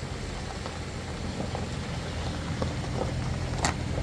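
A motor runs steadily with a low hum, and there is one sharp click about three and a half seconds in.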